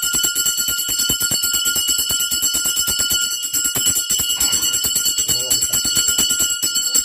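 Small brass puja hand bell (ghanta) shaken without pause: a fast, even patter of clapper strikes over a steady, bright ring.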